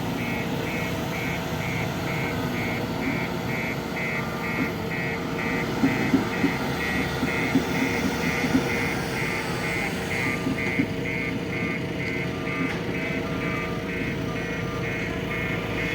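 Heavy diesel construction machinery running steadily, with a warning beeper giving an even series of high beeps, about two to three a second. Several sharp knocks come around the middle.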